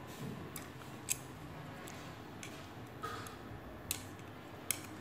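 Chopsticks clicking in a stainless steel pot of braised fish as they pick at the pieces: about seven light, sharp clicks, irregularly spaced.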